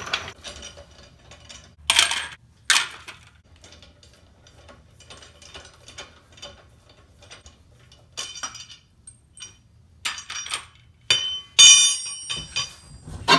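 Metal clinks and clatter of lug nuts being taken off with a lug wrench and dropped into the wheel's upturned center cap. Single knocks come now and then, and the loudest run of ringing clinks comes near the end.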